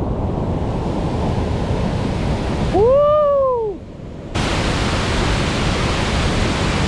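Steady rush of a high-water whitewater rapid pouring over granite drops. About three seconds in a person gives one loud shout that rises and falls in pitch, and a little after that the rushing turns suddenly brighter and fuller.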